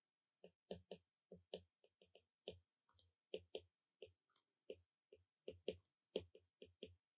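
Stylus tip tapping on an iPad's glass screen during handwriting: an uneven run of short, sharp taps, about three or four a second.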